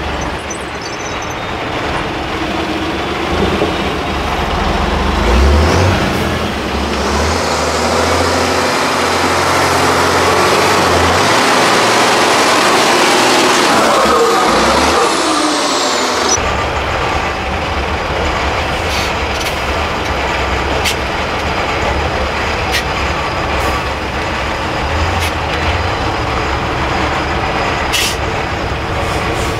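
Diesel engine of a Tatra 8x8 truck-trial truck working under load, its note rising and falling as it crawls up and down steep sand slopes. A few sharp knocks sound in the second half.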